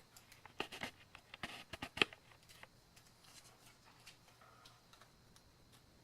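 Hands handling and taking a part off a small drone build: a quick run of clicks and rustles, loudest a sharp click about two seconds in, then a few faint ticks.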